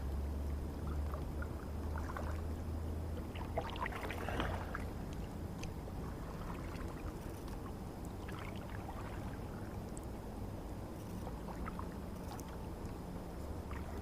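Kayak being paddled on a pond: small water splashes and drips off the paddle, with light knocks against the hull, over a low steady rumble. A brief cluster of splashes comes about four seconds in.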